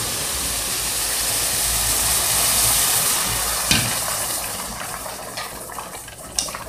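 Hot water poured into a pot of sautéed rice, hissing and sizzling as it hits the hot pot. The hiss swells, then fades over the last seconds, with a single knock about halfway through.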